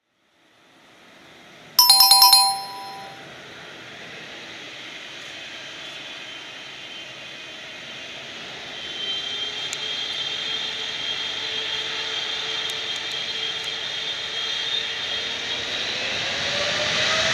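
A chime rings once about two seconds in, marking the quiz answer. Then a British Airways Boeing 777's GE90 turbofans run up for takeoff: a steady jet roar with a high whine joining partway through and a tone that rises in pitch near the end as the engines spool up, growing louder.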